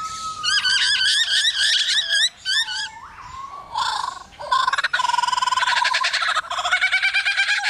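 Superb lyrebird singing in display: fast runs of repeated, wavering whistled notes, a falling slur about three seconds in, then a fast run of repeated notes from about halfway to the end. This is the bird's mimicking song.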